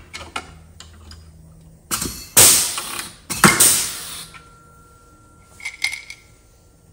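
Air-powered rivet gun setting two rivets about a second apart: each pull ends in a sharp pop followed by a short hiss of air that dies away. A faint thin whistle follows, with a few light clicks near the end.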